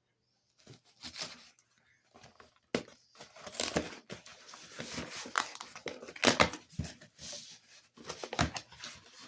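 A mailed package being torn open by hand: irregular rips and crinkling rustles of the packaging, louder tears about three, six and eight seconds in.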